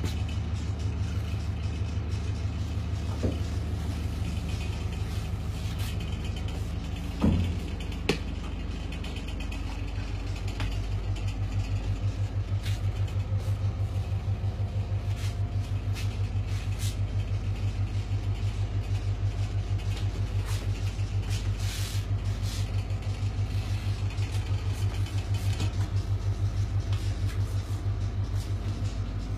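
Iveco Eurocargo lorry's diesel engine idling, heard from inside the coach-built living area as a steady low rumble with a fast, even pulse. A single knock comes about seven seconds in, with a click just after.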